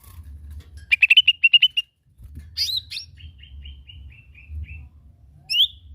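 Cucak ijo mini (lesser green leafbird) singing. It gives a quick run of about eight bright chirps, a loud rich note, then a series of softer repeated notes stepping slightly lower, and one sharp rising note near the end.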